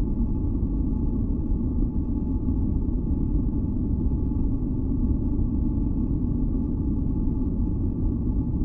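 A steady, deep rumbling noise from a sleep-and-relaxation noise track, heaviest in the low end, with a few faint held tones above it. It does not change.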